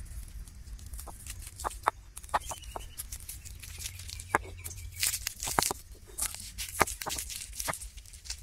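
Whole shallots cracking and popping as a stone roller crushes them on a flat grinding stone, a string of irregular sharp cracks that come thicker in the second half.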